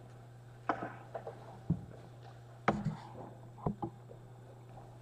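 Slow footsteps on a hardwood floor, about one knock a second with lighter taps between, over a steady low hum.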